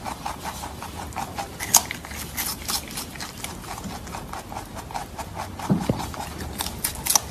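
Rabbit crunching crisp cucumber and carrot slices: a quick, irregular run of sharp crunches, several a second.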